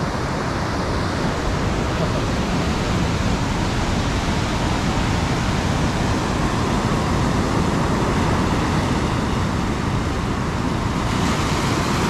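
Ocean surf breaking over a reef flat and washing up the beach: a steady rushing wash of waves that swells slightly near the end as a wave runs in.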